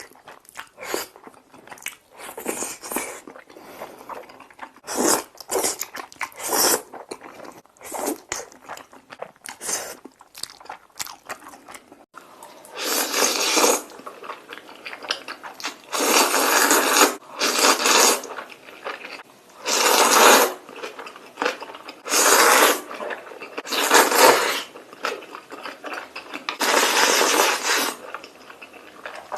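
Close-miked eating of spicy Korean noodles. For the first part, chewing and wet mouth clicks come in quick short bursts. From about halfway through there are about six long, louder slurps, each lasting a second or two.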